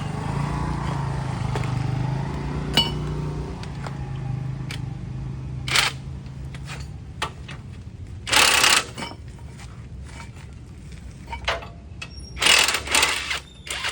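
A low motor hum that fades out about halfway through, then several sharp metal clanks and clinks of tools and parts being handled, the loudest about two-thirds of the way in and near the end.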